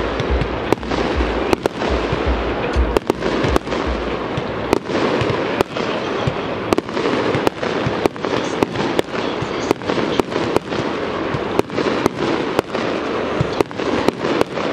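FOXX Extrem firework battery (cake) firing its shots in quick succession, about two sharp reports a second, over a steady hiss and crackle from the burning effects.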